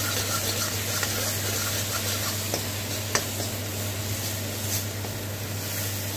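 Spiced onion-tomato masala sizzling in mustard oil in an iron kadai while a metal spatula stirs and scrapes it, with a few sharp clicks of the spatula against the pan. The dry spices are frying down into a thick paste.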